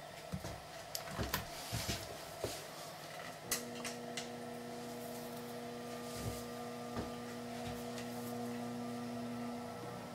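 Blower door's variable-speed fan coming on about three and a half seconds in and running with a steady hum while the controller drives it toward a 60-pascal test pressure, the depressurization stage of the test. A few light clicks and knocks come before it.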